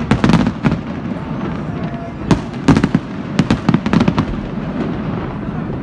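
Fireworks display: bursting shells bang and crackle in quick clusters, with a short lull about a second in and a busy run of bangs from about halfway through.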